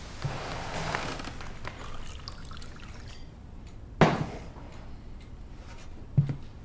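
Liquid poured from a large glass bottle into a faceted drinking glass for about three seconds, followed by a sharp knock on the wooden table about four seconds in and a lighter knock near the end.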